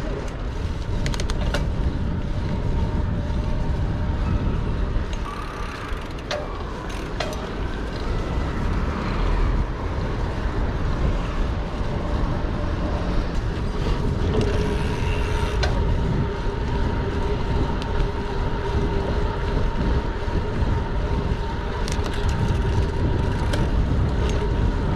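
Steady low rumble of wind on the microphone and street traffic, as heard while riding a bicycle through the city, with a faint steady hum and a few light clicks.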